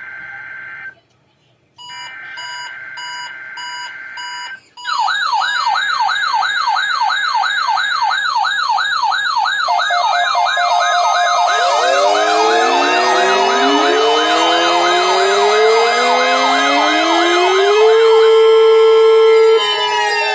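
Weather radio receiving an alert. First come two buzzy digital header bursts with short gaps between them. Then the radios' alarms go off: a fast warbling siren-like tone, joined about ten seconds in by several more overlapping warbling and slowly rising wailing tones. These settle into a held tone and all sweep downward near the end.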